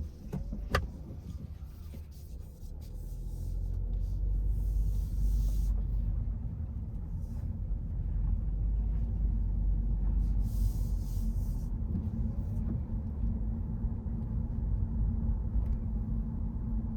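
A car driving on a wet road: a steady low rumble of tyres and engine that grows louder about three seconds in. There is a sharp click near the start and a couple of brief hissing swishes.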